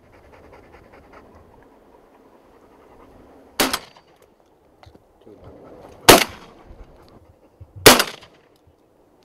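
Three shotgun shots fired with steel-shot cartridges, the second about two and a half seconds after the first and the third under two seconds later.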